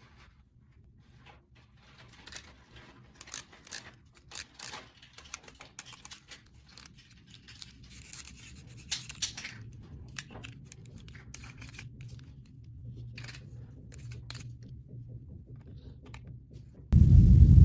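Scattered light clicks, scratches and rustles of small plastic toy parts being handled. Near the end a loud low rumble cuts in suddenly.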